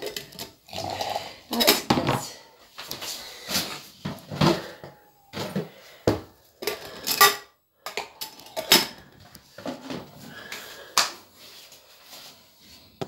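Tea glasses, a spoon and other kitchenware clinking and knocking as they are handled: about a dozen sharp clinks and knocks at uneven intervals.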